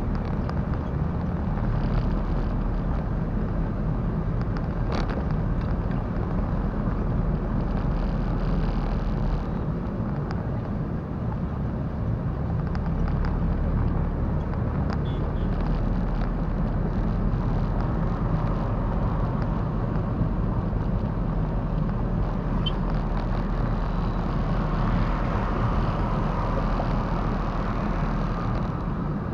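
Steady engine and road noise of a car driving along, heard from inside the cabin, with a low engine drone underneath.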